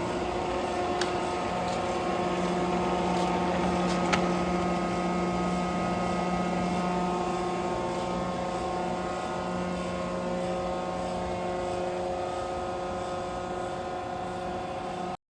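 Cincinnati universal cylindrical grinder running: a steady machine hum made of several constant tones, with a few light clicks in the first few seconds. It cuts off suddenly near the end.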